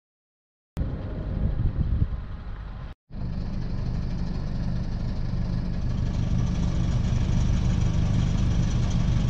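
Cabo Rico 38 sailboat's inboard diesel engine running steadily at low speed, a low even hum. It cuts out for an instant about three seconds in and resumes.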